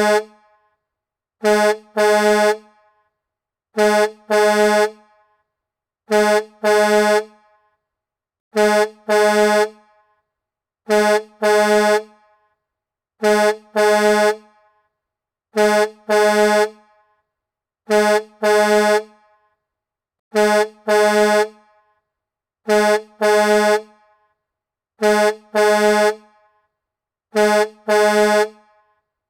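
Truck horn sounding in repeated double blasts, a short honk followed by a longer one, with each pair coming about every two and a half seconds in an identical loop.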